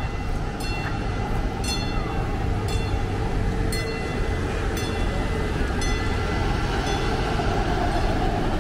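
Diesel engine of a trolley-style tour bus running close by: a steady low rumble that grows a little louder towards the end. Short, light metallic clinks ring out about once a second over it.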